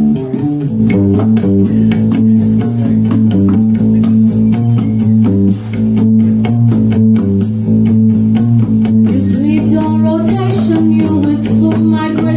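Live band jam led by an electric bass guitar playing sustained low notes, with guitar and a run of percussive hits. A woman's singing voice comes in about ten seconds in.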